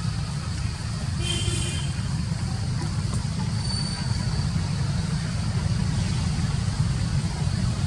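Steady low rumble, with a brief high-pitched sound about a second in and a short thin whistle near four seconds.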